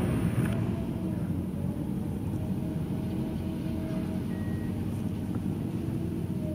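High-reach demolition excavator's diesel engine running steadily under load, a low rumble with a faint steady higher whine.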